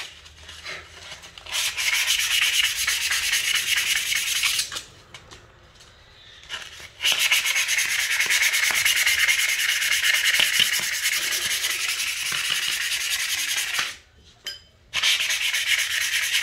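A long metal rod being sanded by hand with a red abrasive sheet: quick back-and-forth scraping strokes in three long spells, pausing briefly at about five and at about fourteen seconds in.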